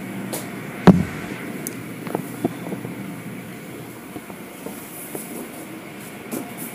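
Steady rumbling hum of an automatic car wash tunnel's machinery. A single loud thump about a second in, then a few lighter knocks.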